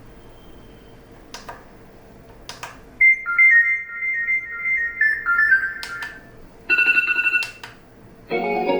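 Two light clicks, then an electronic ringtone melody of short beeping notes plays for about three seconds. It breaks off for a different, brighter tone lasting under a second, and a fuller musical snippet starts near the end. These are alarm tones being previewed one after another as they are selected.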